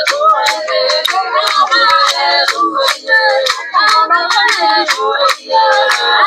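Group of voices singing a traditional song, with sharp hand claps keeping a steady beat of about two a second.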